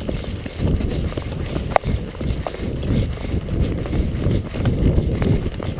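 Running footsteps, heavy irregular thuds, with a few sharp clicks, the loudest a little under two seconds in.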